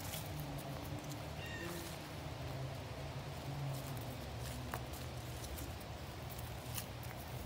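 Footsteps on a leaf-strewn dirt woodland trail, soft scattered scuffs and clicks over a steady low rumble, with a brief faint chirp about a second and a half in.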